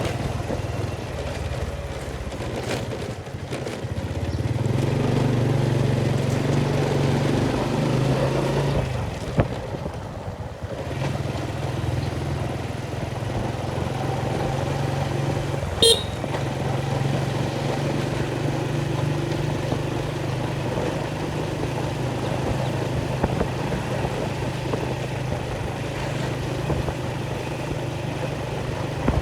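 An engine running steadily at an even pitch, dipping briefly about ten seconds in, with a short sharp sound about sixteen seconds in.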